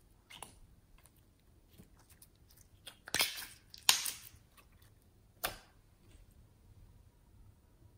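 Slime being squeezed and kneaded by hand, giving a few short wet clicks and pops, the loudest two close together about three to four seconds in.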